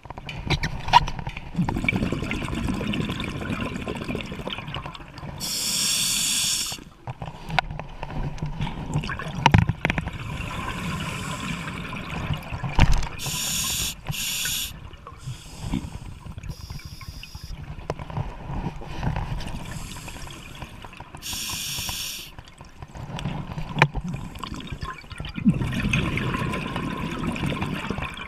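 Scuba diver breathing through a regulator underwater: a short hissing inhale through the demand valve every several seconds, between longer stretches of low bubbling from the exhaled air. A few sharp knocks come in between.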